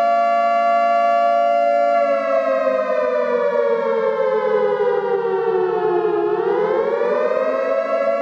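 Civil defence air-raid warning siren wailing: it holds a steady pitch, slides down over about four seconds, then rises again near the end.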